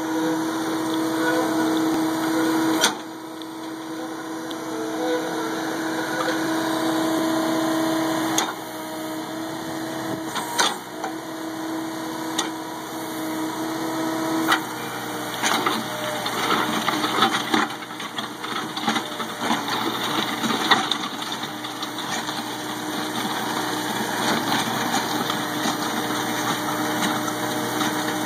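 Skid-steer loader engine running steadily, driving a hydraulic post-hole auger. About halfway through the auger bores into the ground, and a rough, gritty noise of churning soil and stones joins the engine.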